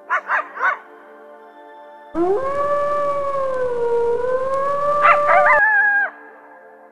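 A canine howling: three quick yips, then one long howl of about three seconds that sags slightly in pitch and rises again, breaking into short yelps near the end.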